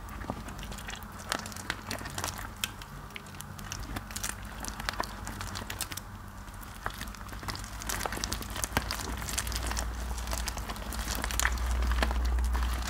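Wet mushy soap paste squished and kneaded between rubber-gloved hands, a dense run of small wet crackles and pops, growing louder near the end as the hands press the soap down into the bowl.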